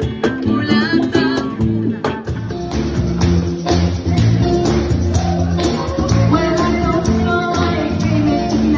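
Band music with a steady beat and singing.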